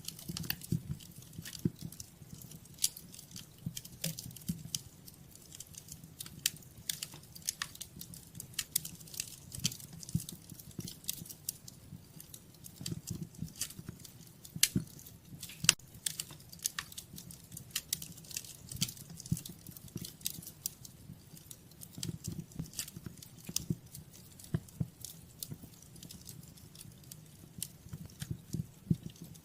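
Wood fire crackling: irregular sharp snaps and pops, some louder than others, over a low steady rumble of the burning fire.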